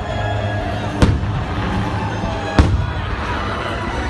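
Two sharp firework bangs, about a second in and again a second and a half later, over loud music from the fireworks show's soundtrack.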